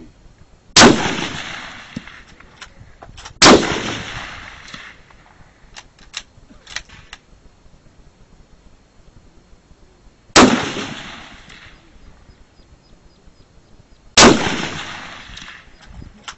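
Four big-bore rifle shots on an open range, each a sharp crack that trails off in a rolling echo. Two come close together near the start and two more follow later, about four seconds apart. A few faint clicks sound between them.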